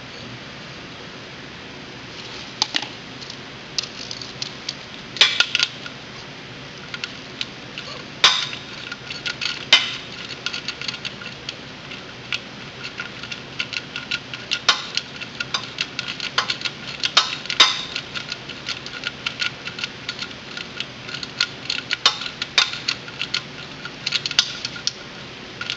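Metal tool on a steel drain plug: irregular sharp clinks and runs of quick clicks as the 17 mm drain plug is refitted and tightened under a small four-stroke ATV engine.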